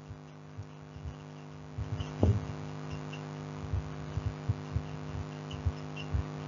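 Steady electrical hum with a scatter of soft, irregular low thumps, and one louder knock about two seconds in.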